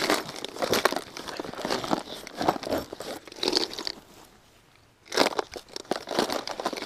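Close handling of fishing gear: a soft tackle bag rustling and a clear plastic tackle box knocking and clacking, in irregular crinkles and clicks. It stops for about a second, then starts again.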